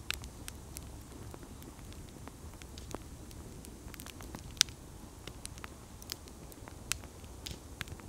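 Wood campfire crackling, with irregular sharp pops, the loudest about halfway through, over a low steady rumble.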